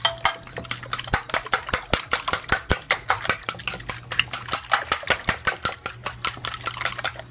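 Raw eggs being beaten by hand in a glass baking dish: a utensil clicks rapidly and evenly against the glass, about six strokes a second, stopping just before the end.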